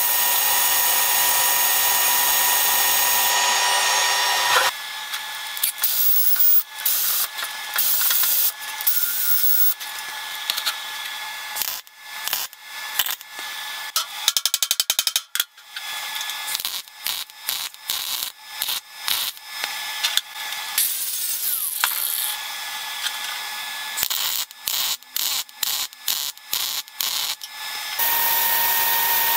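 A power tool runs steadily with a whine for the first few seconds and again near the end. In between, a MIG welder crackles in a run of short bursts with brief pauses, as steel plates are tacked and welded.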